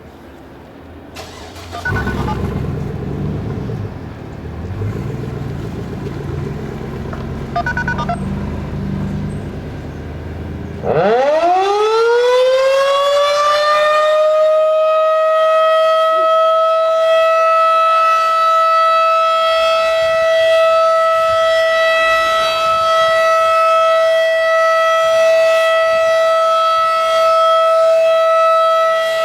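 Low rumbling noise for the first third, then a Federal Signal 2001 outdoor warning siren winds up during a test, its single tone rising quickly and holding steady and loud.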